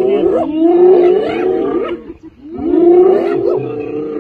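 A pack of spotted hyenas calling over one another in a fight with a lion over a kill: many overlapping, loud cries and growls that rise and fall in pitch, dropping away briefly about two seconds in.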